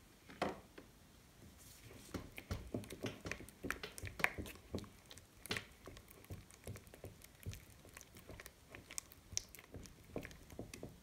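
Silicone spatula stirring clear glue mixed with glitter glue in a glass bowl: faint, irregular sticky squishes and small clicks.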